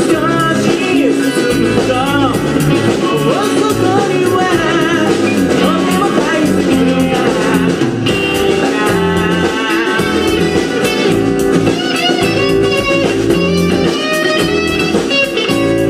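Live band playing a bluesy rock song: acoustic and electric guitars over bass and drums, with a lead line that bends up and down in pitch over a steady beat.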